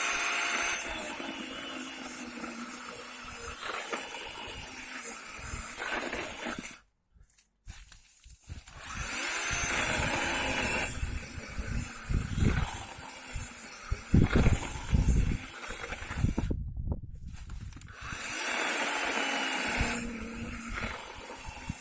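Parkside 20 V cordless chainsaw's electric motor whining up to speed and winding down in several short runs, cutting into a thick, fresh branch that the owner finds quite difficult to cut. The sound cuts off abruptly twice.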